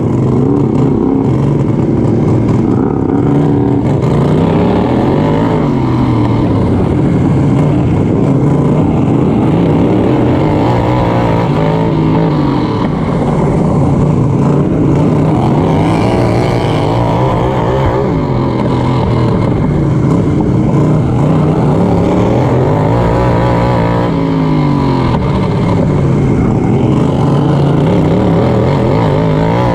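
Racing lawn mower's engine at full race pace, heard from on board. It rises and falls in pitch over and over, about every five or six seconds, as the mower speeds up and slows again around the track.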